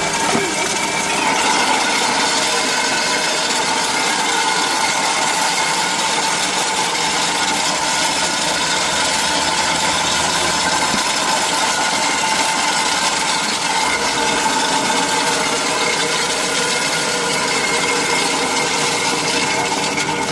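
Chestnut-peeling machine running steadily as it strips the thick shells off a load of acorns.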